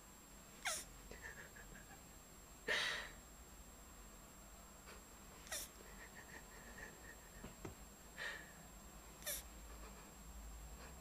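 Male tortoise mounting a cushion and giving short, squeaky mating calls, five in all, a few seconds apart. Several fall quickly in pitch, and the second, about three seconds in, is the loudest.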